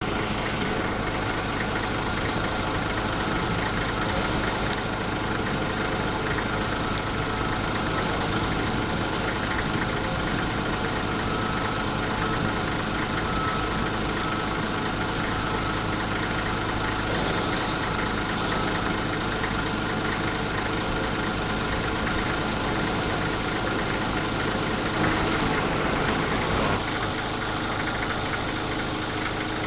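An engine idling steadily, with a constant low hum and a slight swell in level near the end.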